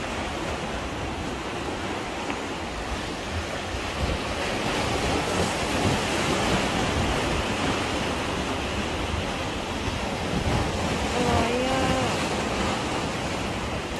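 Sea waves washing and breaking against concrete tetrapods, a steady surf, with wind buffeting the microphone.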